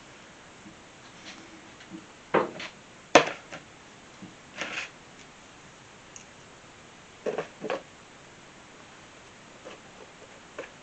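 Handling noises from a chunk of cedar log and a plastic tub on a workbench: a handful of separate knocks and clunks, the sharpest about three seconds in, with fainter taps near the end.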